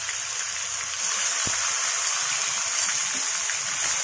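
Ginger and green chilli paste, ground with a little water, sizzling in hot mustard oil in a kadhai. The moisture in the paste makes a steady frying hiss that grows a little louder about a second in.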